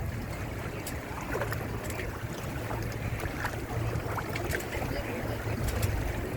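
Water rushing and splashing against the hull of a Windrider 17 trimaran sailing at speed, with a steady low rumble of wind on the microphone and scattered small splashes and ticks.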